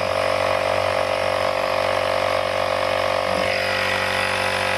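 Air Hawk Pro battery-powered portable air compressor running steadily with a constant motor drone while it inflates a basketball through a needle, the ball already near full pressure.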